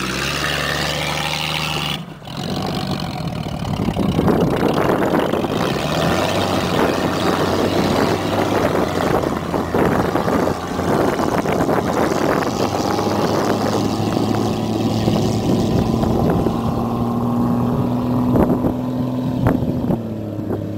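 Jeep engine running after a transmission line repair and fluid refill: it hums steadily at first, then after a brief drop near two seconds it runs on with a lot of clatter over the engine note, and the engine tone rises slightly toward the end.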